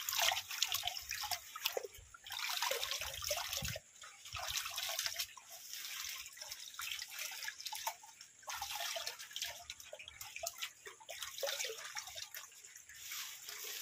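Water sloshing and splashing in a plastic bucket in irregular surges as a sack of fertilizer (triple 14 complete and urea) is swished and squeezed in it by hand to dissolve the granules.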